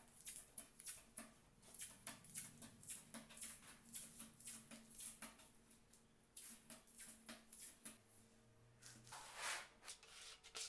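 Masking tape pulled off its roll and torn into short strips, heard as a quick, irregular series of faint crackling rips and clicks, with a brief scrape near the end.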